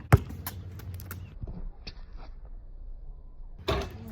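A basketball bounces once sharply just after the start, with a few lighter ticks after it. Near the end a louder, noisier clatter comes from the low-rim hoop.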